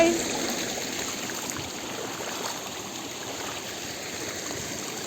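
A stream running: a steady rush of flowing water.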